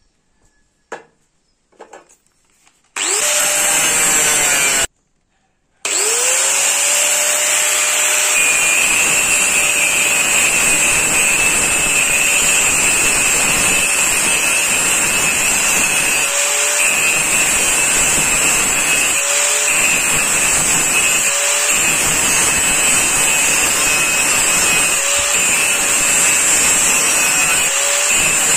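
Handheld angle grinder spinning up about 3 s in, cutting out a second or so later, then spinning up again and running steadily with a high whine as it grinds the edge of a steel knife blank. The sound eases briefly several times in the second half.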